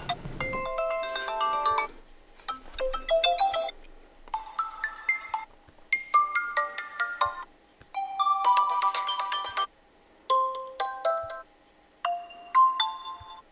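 Built-in ringtones of an Infinix Hot 12 Pro phone previewed one after another through its speaker: about seven different short, chiming melodies, each cut off after a second or so, with brief pauses between them.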